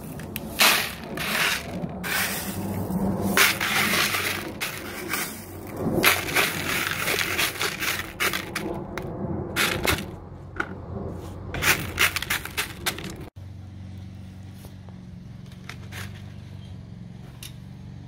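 Handfuls of clay pebbles scooped out of a bucket and dropped into a plastic strawberry tower pot: rattling, scraping bursts with many sharp clicks of pebbles against each other and the plastic. About thirteen seconds in it cuts off abruptly to a quieter steady low hum with a few light ticks.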